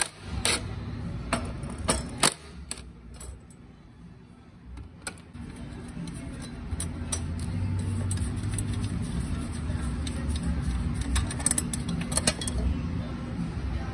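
Metal clinks and knocks as a steel cover plate and its bolts are handled, a sharp click at the start and several more in the first few seconds, then a few more clinks near the end over a steady low hum.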